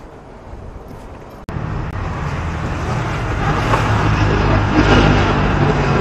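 Motor vehicle engine running close by in street traffic, starting abruptly about a second and a half in and growing louder toward about five seconds.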